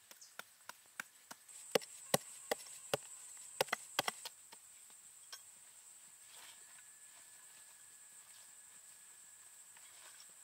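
A quick run of about fifteen sharp knocks, irregular at roughly three a second, over the first four seconds, then stopping. A steady high-pitched insect drone runs underneath.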